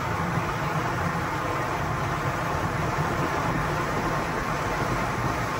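Automatic car wash working over the car, heard from inside the cabin: a steady, even rushing roar with a low hum beneath it.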